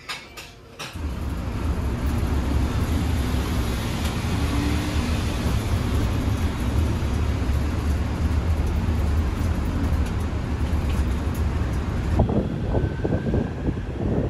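Steady low rumble of a moving vehicle, starting abruptly about a second in. Irregular low thumps join it near the end.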